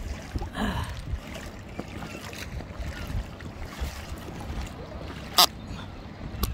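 Choppy sea water slapping and splashing against an inflatable kayak, with wind buffeting the microphone in a low rumble. A sharp knock about five seconds in is the loudest sound, and a smaller one follows near the end.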